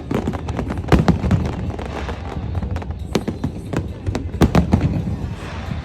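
Aerial fireworks bursting in a rapid string of sharp bangs and crackles over a steady low rumble, loudest in clusters about a second in and again past the middle.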